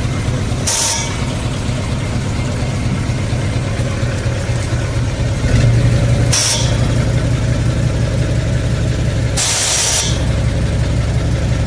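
Hino Profia truck's F17E diesel engine idling steadily, a little louder from about halfway through. Three short hisses cut in over it, the last one the longest.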